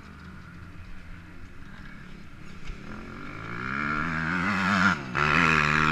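Sport quad's engine idling, then revving up from about three seconds in and getting louder, with a brief dip near five seconds before it climbs again.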